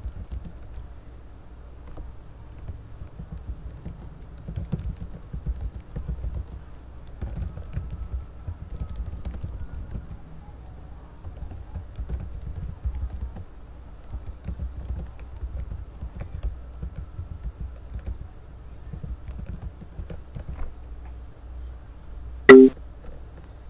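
Soft, irregular tapping over a low rumble, and one short loud knock about a second before the end.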